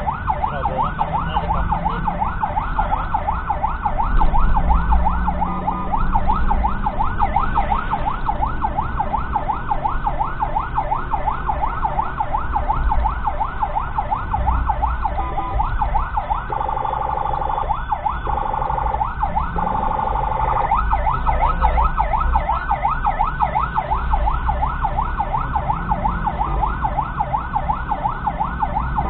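Ambulance electronic siren on a fast yelp, heard from inside the cab: rapid repeated rising-and-falling sweeps. A little past the middle it switches for about four seconds to a steady held tone, then goes back to the yelp. Engine and traffic rumble run underneath.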